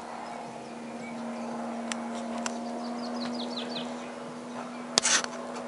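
Small propeller plane passing overhead, its engine giving a steady drone. A bird gives a quick falling series of chirps about three seconds in, and a short loud knock sounds near the end.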